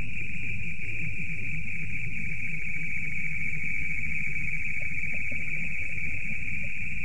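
Soundtrack of an old experimental film: a steady, unchanging high-pitched whine-like hiss over a low rumble.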